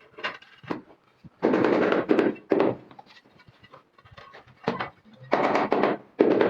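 Floor tile being tapped down into its bed in quick bursts of rapid knocks. There are about four runs, each lasting under a second, with quiet gaps between them.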